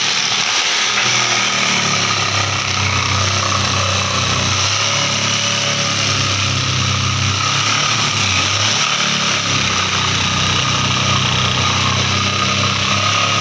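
Electric jigsaw sawing through a laminated plywood board, its motor and reciprocating blade running loud and steady.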